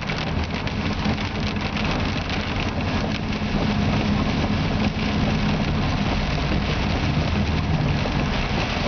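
A vehicle's engine running steadily at cruising speed, heard from inside the cab, with rain striking the windshield and roof as many fine ticks over a constant wash of road and rain noise.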